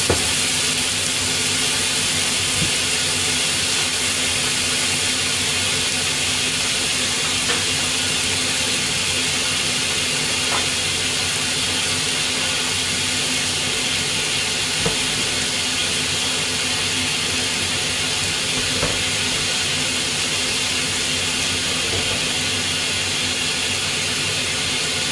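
Beef and julienned pepper, carrot and bamboo-shoot stir-fry sizzling steadily in an iron wok on low heat, with a steady low hum underneath and a few faint ticks.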